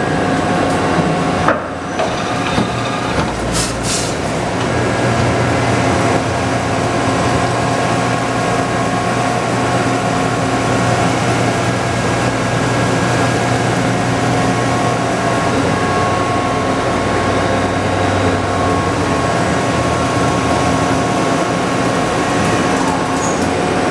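Supermax YMC-TC2 CNC turning center running, a steady machine hum with a held whine over it, and a brief knock a couple of seconds in.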